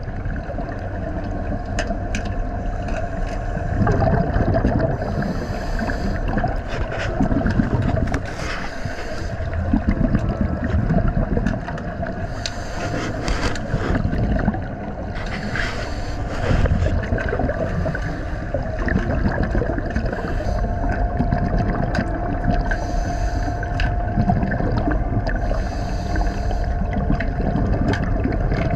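Underwater sound of scuba diving: the hiss of a regulator on each breath and the gurgling rush of exhaled bubbles, coming every few seconds over a steady hum.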